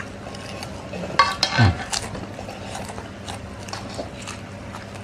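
Close-up eating sounds: noodles being slurped and chewed, with light clicks of forks against a metal pan. A louder, breathy burst about one and a half seconds in.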